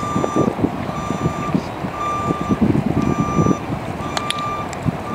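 Vehicle backup alarm beeping steadily, about one half-second beep each second, over low background noise; a sharp click about four seconds in.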